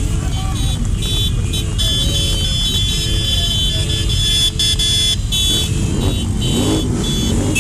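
Motorcycles running slowly in a group, with a steady low engine and wind rumble and horns tooting in short blasts. A shrill high-pitched tone sounds on and off over it.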